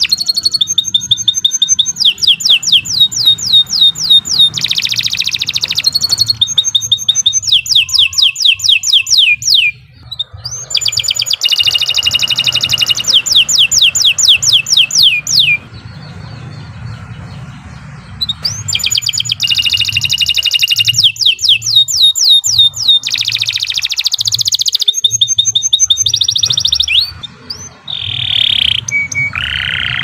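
Domestic canary singing a long, loud song of rapid trills: runs of fast repeated sweeping notes, with short breaks about ten seconds in and again around the middle, and shorter phrases near the end.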